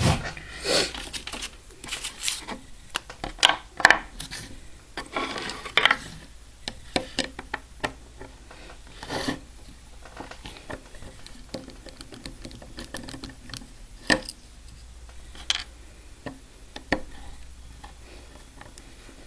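Small metal clicks, taps and clinks of a mortise lock cylinder and steel tools being handled while the cylinder is taken apart. The clicks come thick and fast for the first few seconds, then thin out to occasional taps, with a sharper click about fourteen seconds in.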